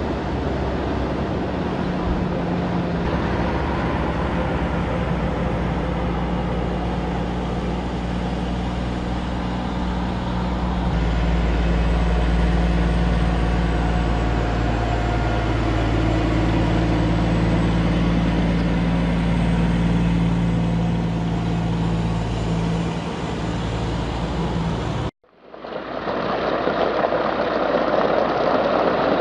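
Heavy-haul truck diesel engines running steadily under load, a low hum with a broad rumble. About 25 seconds in, the sound cuts abruptly to a rushing, hiss-like noise.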